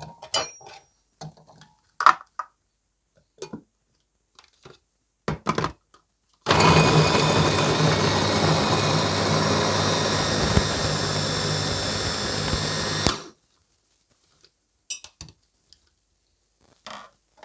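Heinner electric mini chopper running steadily for about six and a half seconds, chopping carrots and red pepper in its glass bowl; it starts about six seconds in and cuts off suddenly. Before it, a few knocks and clicks as vegetable pieces go into the glass bowl and the lid is fitted.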